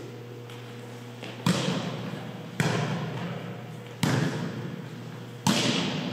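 Volleyball struck four times during a rally, each contact a sharp hit that rings out in the echoing gymnasium.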